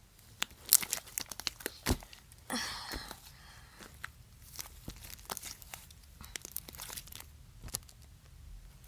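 Sticky slime being stretched and pulled by hand, with irregular sharp crackles, pops and tearing sounds as it pulls away.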